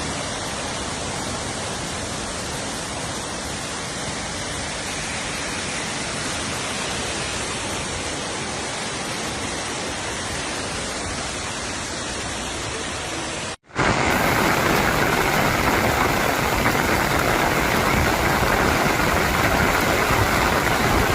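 Steady, even rushing of water from flooding or heavy rain. About thirteen seconds in it cuts off suddenly and a louder rushing takes over.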